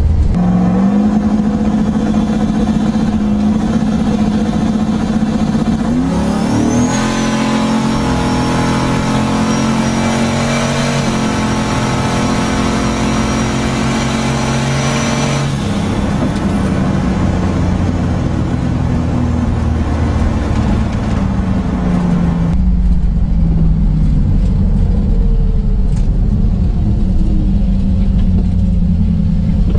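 Boosted, LS-swapped Pontiac Firebird V8 heard from inside the cabin on a drag-strip run. About six seconds in the revs climb sharply and a high whistle comes in as it pulls hard through the gears for about eight seconds. It then lifts off, the whistle stops, and the engine winds down, falling in pitch and settling to a deeper rumble near the end.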